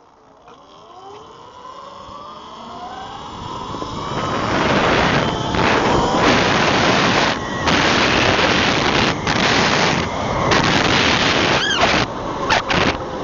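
Electric motorbike riding: the motor's whine glides in pitch, then from about four seconds in it is buried under loud wind noise on the camera microphone as the bike picks up speed, with a few brief dips.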